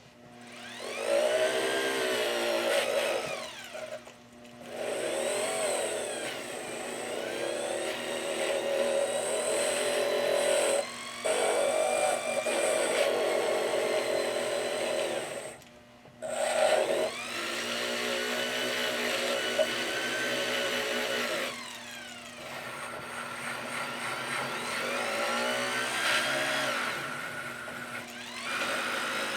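Small electric power tool with a brush, run in several spells to scrub rust and flaking plating off old steel pliers. Its whine spins up and falls back with each pass and stops briefly four times.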